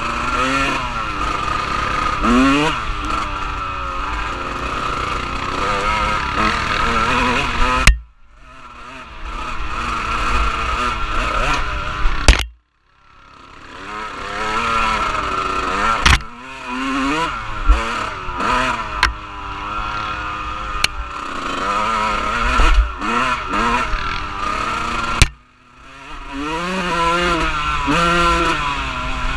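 Off-road vehicle engine running and revving, its pitch rising and falling with the throttle while riding. The sound cuts out sharply three times, each time after a sharp click, then builds back up.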